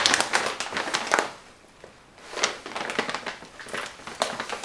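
Plastic tea-bag packaging crinkling and rustling as large bags are handled and shifted on a table, in two spells with a quieter gap in the middle.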